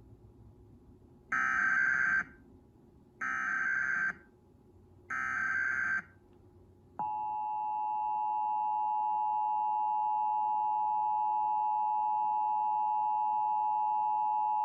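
Emergency Alert System broadcast tones: three short bursts of SAME header data, each about a second long, then, about seven seconds in, the steady two-tone EAS attention signal.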